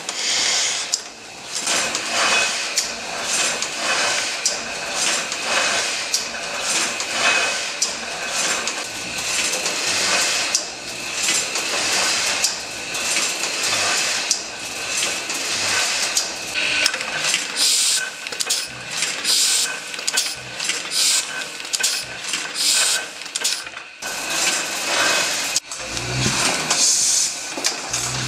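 Automatic platen letterpress printing press running, a steady rhythmic mechanical clatter of repeated sharp clacks as its gripper arms feed sheets through an impression.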